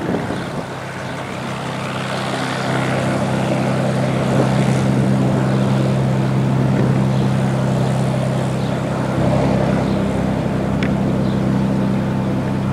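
Cessna 182's piston engine and propeller running as the plane taxis, a steady low drone that grows louder over the first few seconds and then holds steady.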